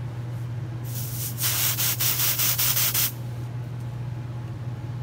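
Aerosol can of smoke-detector test smoke spraying into a ceiling smoke detector to trip it, in a quick series of short hisses lasting about two seconds, starting about a second in. A steady low hum continues underneath.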